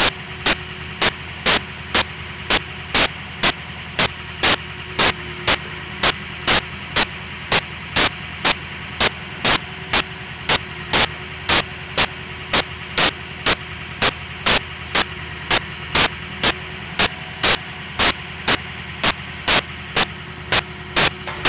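Service truck's engine idling steadily, with sharp, regular clicks about twice a second over it.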